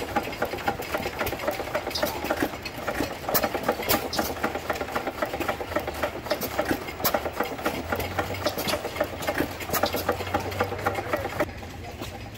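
Vintage hit-and-miss stationary gas engine with twin flywheels running, a rapid, uneven clatter of sharp clicks and pops from its valve gear and firing strokes. Near the end the clatter stops and a quieter, steadier engine hum remains.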